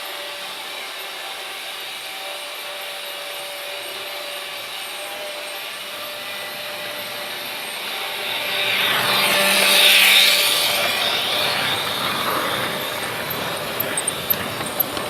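Freight train rolling past: a steady rumbling run that swells louder, peaking with a bright rushing sound about two-thirds of the way through, then eases off, with a few sharp clicks near the end.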